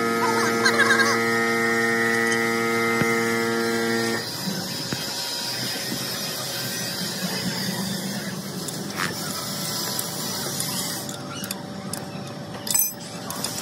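A workshop machine runs with a steady whine of several tones, which cuts off suddenly about four seconds in. After that comes a lower, noisier machine-shop din with a few sharp clicks and knocks.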